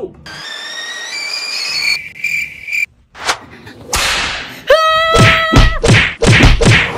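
Comic sound effects: a whistling tone that rises in steps and then holds for about two and a half seconds, a click, and a short burst of hiss about four seconds in. Then a man screams loudly on one held pitch for over a second, followed by shorter yells.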